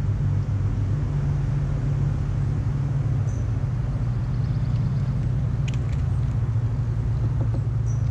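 A steady low rumble, with two faint clicks about six seconds in.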